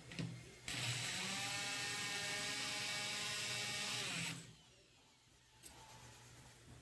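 Sioux valve seat grinder spinning a grinding stone on a valve seat of an aluminium cylinder head: a high motor whine with a grinding hiss. It starts abruptly just under a second in, runs for about three and a half seconds, then stops with the pitch dropping.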